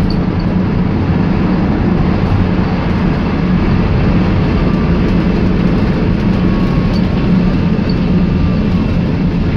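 VW Transporter T5 minibus running along, a steady engine and road noise with no breaks.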